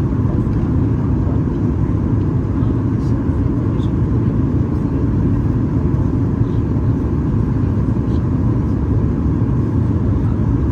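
Steady in-flight cabin noise of a Boeing 737 MAX 8-200 heard from inside the cabin: a constant rumble of airflow and CFM LEAP-1B engines.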